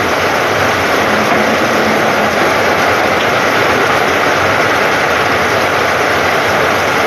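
Heavy rain pouring down onto standing water and a corrugated metal roof: a steady, loud hiss with no let-up.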